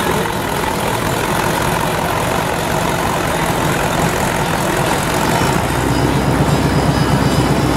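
Classic American cars creeping past at walking pace with their engines idling and a low exhaust rumble. About five and a half seconds in, a deeper, pulsing exhaust rumble grows louder as the next car draws near.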